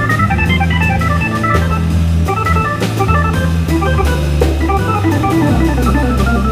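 Hammond B3 organ playing quick runs of short notes over sustained bass notes, with a drum kit keeping time with cymbal strokes underneath.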